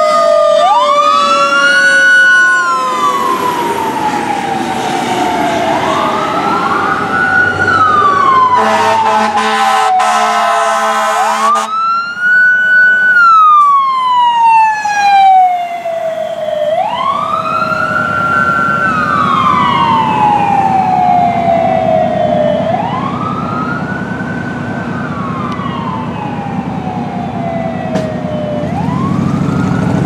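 Fire engine and rescue ambulance sirens wailing. Each cycle rises quickly, holds briefly and falls slowly, about every five to six seconds. About nine seconds in, a steady air horn sounds for a couple of seconds, and a heavy diesel engine rumbles louder near the end.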